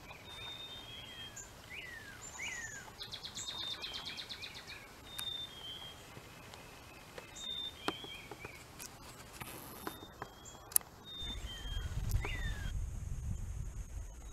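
Songbirds singing and calling: many short chirps and downslurred whistles, with a rapid trill about three seconds in. A low rumble comes in near the end.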